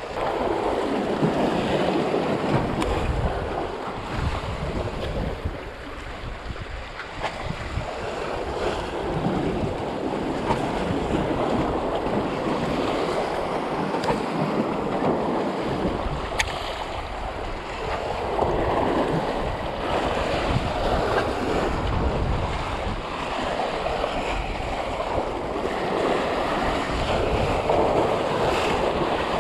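Wind buffeting the microphone over the wash of sea waves, the noise swelling and easing every few seconds.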